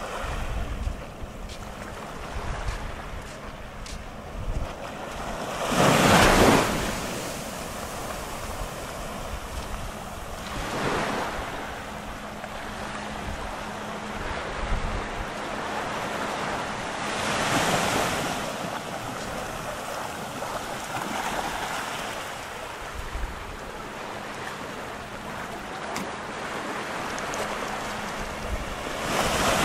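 Sea waves breaking on a sandy beach: a steady wash of surf that swells up every several seconds, the loudest wave about six seconds in. Wind rumbles on the microphone.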